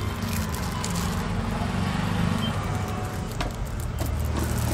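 A steady low hum of a running motor, with a few faint clicks.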